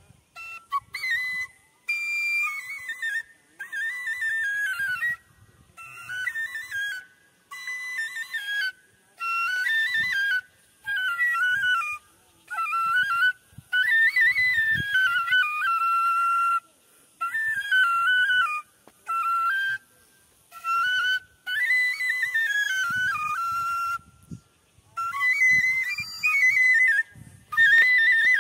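Solo bansuri, a side-blown bamboo flute, playing a melody in short phrases, sliding between notes and pausing briefly between phrases.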